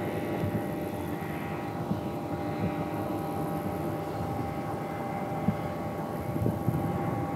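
Boat motor running steadily, a constant hum of several stacked tones.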